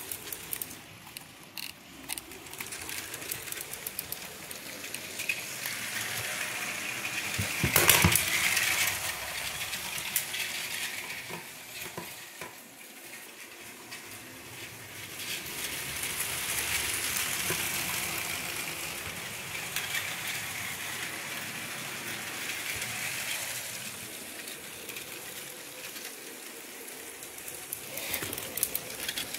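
Motorised Lego train running along plastic track: a hissing whir with rattling clicks that swells as it comes close and fades as it moves off, twice. The loudest moment is a sharp clatter about 8 s in.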